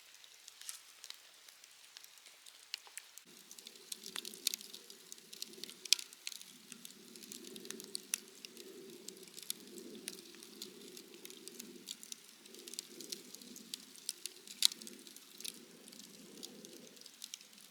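Wood bonfire crackling with irregular small pops and two sharper snaps, about six seconds and fifteen seconds in. A faint low hum sits underneath from about three seconds in until shortly before the end.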